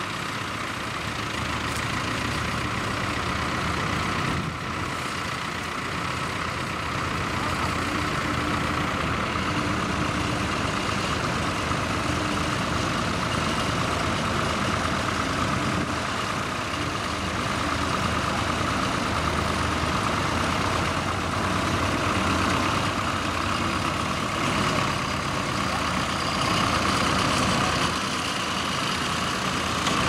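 Diesel farm tractor engines running steadily under load while pulling mounted ploughs through stubble.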